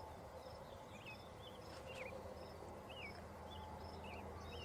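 Faint birdsong: small birds giving short, quick chirps and twittering notes over and over, over a low steady hum.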